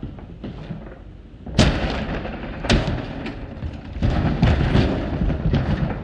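An old dishwasher being thrown out of the house and down concrete front steps onto the lawn. A heavy crash comes about a second and a half in and a second crash about a second later, followed by a run of banging and clattering from its metal body.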